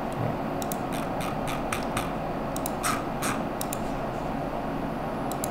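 Scattered computer keyboard and mouse clicks, a dozen or so short sharp clicks at irregular intervals, as numeric values are typed into the software, over a steady background hiss.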